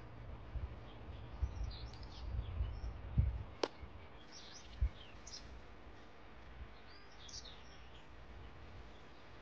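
Small birds chirping in short scattered calls, while a cleaver cuts down through a soft block of tofu and knocks dully on a wooden stump chopping block twice, a little after three seconds and near five seconds in. A low rumble sits under the first half.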